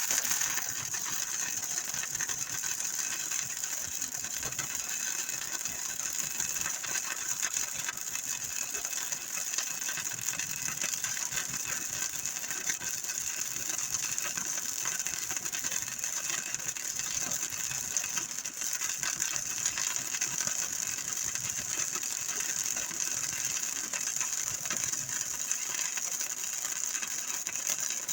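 A workshop machine or power tool running continuously with a fast, even mechanical clatter.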